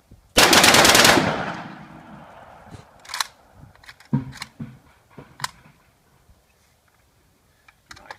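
Suppressed Saiga 12-gauge shotgun, converted to full auto with its barrel cut to 10 inches, firing one rapid burst of about a second; it echoes and fades over the next second. A few separate clicks and knocks follow.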